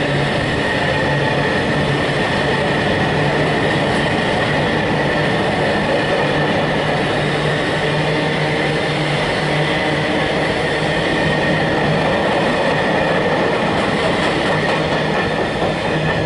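Freight train's loaded intermodal container wagons rolling past on the track: a steady loud rumble and clatter of wheels on rail, with a steady high whine running along with it.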